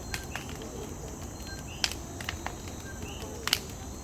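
Night chorus of insects with a steady high-pitched trill, and a frog calling a two-note, rising "co-quí" about every second and a half, typical of the Puerto Rican coquí. A few sharp pops come through, the loudest about two and three and a half seconds in.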